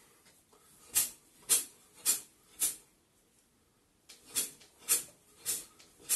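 Two runs of four short, sharp hissing swishes, about two a second, each from a quick karate punch thrown in place, with a pause between the runs.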